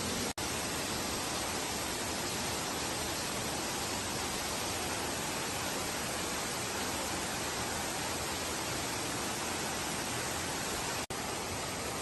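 Waterfall pouring into a pool: a steady, even rush of falling water, cutting out for an instant twice, about half a second in and near the end.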